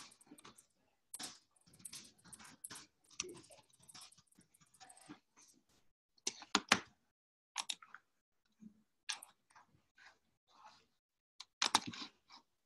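Typing and clicking on a computer keyboard: irregular short taps, dense for the first few seconds, sparse in the middle, and a quick cluster near the end.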